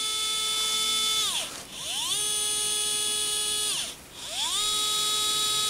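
ES121 motion-control electric screwdriver, a small brushed motor driving a planetary gearbox, whining as it spins its bit free three times. Each run starts and stops by tilting the hand: the pitch rises as it spins up, holds steady for a second or two, then falls away as it stops.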